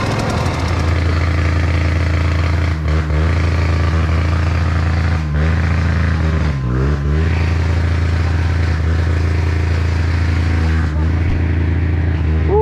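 Trail motorcycle engine running steadily close by. Its note dips and wobbles briefly a few times with changes in throttle.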